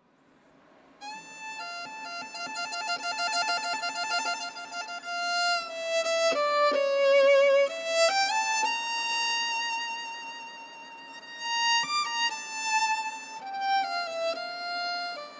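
Solo violin playing a slow melody, starting about a second in, with long held notes, vibrato and slides between pitches.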